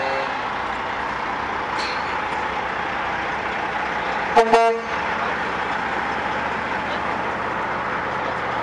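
Prime mover truck's diesel engine running as it rolls slowly past, with one short air-horn toot about halfway through.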